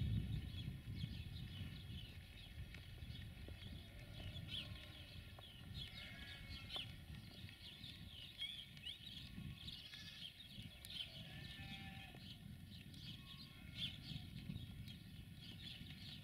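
Birds chirping and calling all through, over a faint low rumble that is strongest at the start.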